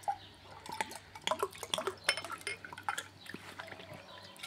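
Pastis pouring from a large glass bottle into a tall glass: gurgling and splashing with small drips and glassy clinks, tailing off about three and a half seconds in as the glass fills.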